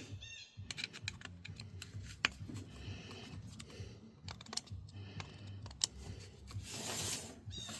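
Irregular small clicks and taps of a screwdriver and small metal parts being handled while the RC truck's engine mount screws are snugged up to set the gear backlash.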